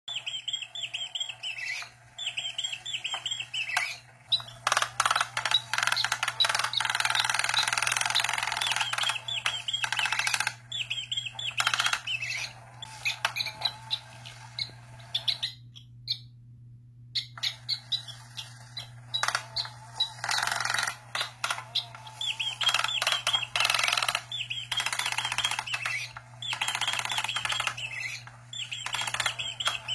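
Bird chirping and twittering in quick, repeated warbling phrases, over a steady low hum.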